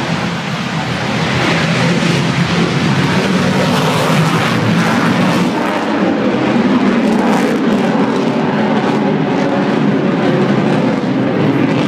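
Sukhoi Su-35 fighter's twin afterburning turbofan engines in flight, a loud, steady jet noise.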